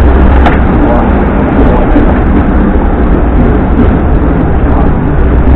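Hong Kong double-decker tram running along the street, heard from its front platform beside the driver's controller: a loud, steady, deep rumble with one sharp click about half a second in.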